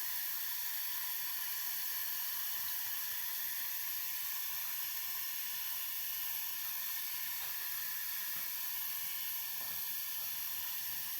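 Air hissing steadily out of an open radiator bleed valve. It is trapped air escaping from the top of a radiator that stays cold because of it.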